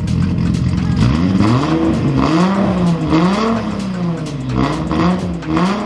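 Nissan Laurel's turbocharged RB25 straight-six running cold, its throttle blipped several times so the revs rise and fall again and again.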